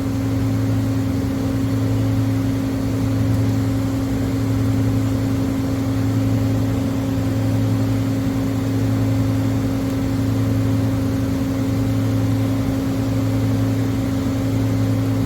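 Amada Vipros 255 CNC turret punch running its warm-up program: a steady, even hum from the machine's hydraulic pump, with no punching strokes heard.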